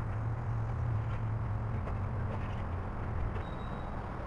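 Diesel engine of a demolition excavator running steadily, a low rumble, with a few faint knocks.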